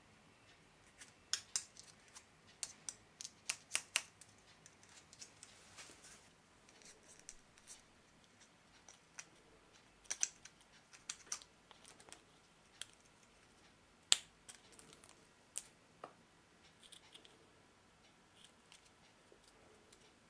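Irregular sharp clicks and snips from small hand tools at work, in clusters with short pauses between them, one click about 14 seconds in standing out as the loudest.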